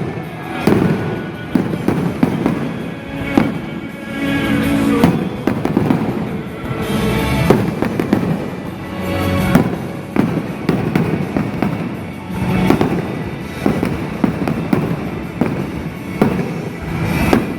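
Fireworks display: aerial shells bursting in a steady run of bangs over loud music playing along with the show.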